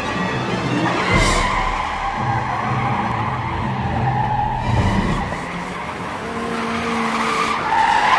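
Car tyres squealing in long, wavering screeches as a car accelerates, with its engine running underneath. One squeal runs from about a second in to about five seconds in, and another starts near the end.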